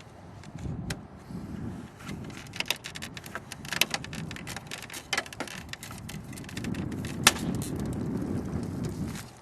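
Sharp clicks and knocks of plastic car trim being handled and unclipped over a low rumble, with the loudest snap about seven seconds in.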